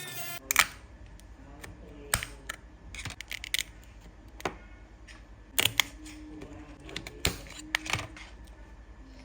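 Irregular sharp clicks and taps of small hard parts and tools being handled during an AirPods charging case repair, about a dozen in all, with the loudest about half a second in.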